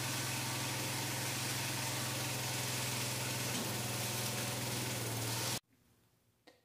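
Garden tractor engine running steadily under hydraulic load, powering the front-end loader cylinder of a homemade log splitter as it pushes a log onto the wedge. The sound cuts off suddenly about a second before the end.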